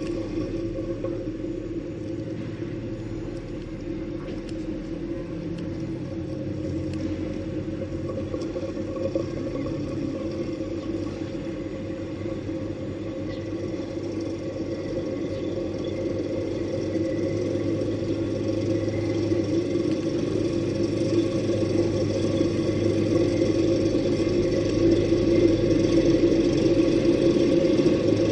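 Vehicle engine running steadily with a low, even rumble, growing louder over the last ten seconds or so.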